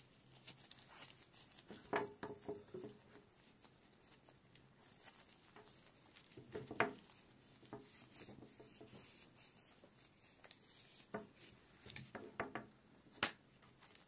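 Handling noise from a DC power cable and its metal barrel-plug tips in gloved hands: soft rubbing with a few clusters of small clicks and taps, the sharpest single click near the end.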